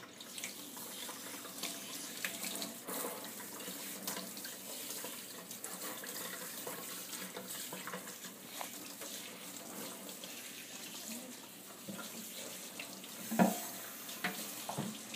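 Kitchen sink tap running steadily onto a young goat being washed by hand, the water splashing off its coat into a stainless steel sink. There is one brief louder bump near the end.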